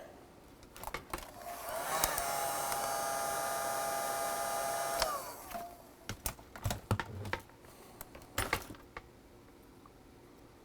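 A hot-air blower, used to shrink heat-shrink tubing over freshly soldered wires, runs for about three and a half seconds with a steady whine: the pitch rises as it starts and falls as it switches off. A few clicks and knocks of handling follow.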